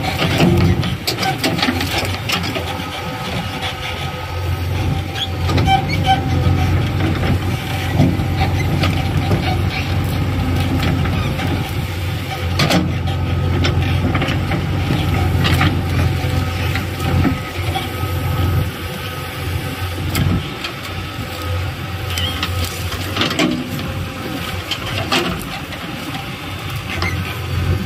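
JCB 3DX backhoe loader's diesel engine running steadily under load while the backhoe arm works, with scattered knocks and clanks from the bucket and root.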